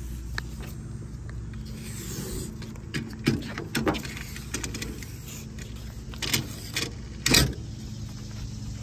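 Plastic protective backing film being peeled off the adhesive underside of a foam weatherstrip on a metal bed rail, giving a run of short crinkling, tearing crackles, the loudest about three and a half and seven seconds in.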